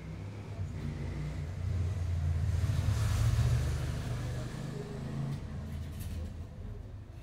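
A car passing outside: a low rumble that swells to a peak about three seconds in and then fades away.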